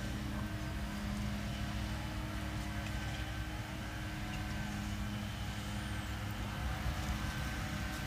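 Steady low outdoor rumble with a constant hum.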